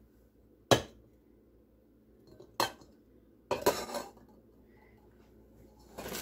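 Glass pot lids with metal rims clinking as they are set down on the counter and against one another. There are three sharp clinks: one about a second in, one near the middle, and a short clatter a little later.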